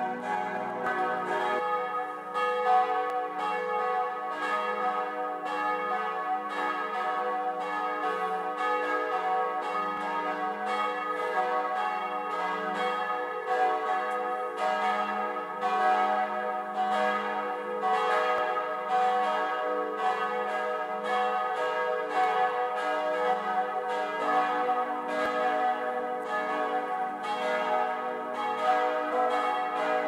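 Several church bells ringing together in a full peal, their swinging strikes overlapping continuously.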